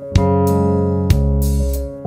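Instrumental background music: sustained keyboard chords over a low bass, with new chords struck at the start and again about a second in.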